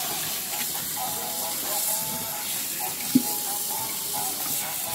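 Tap water running onto napa cabbage in a stainless steel sink as the leaves are rinsed by hand, with soft background music over it. A single sharp knock about three seconds in.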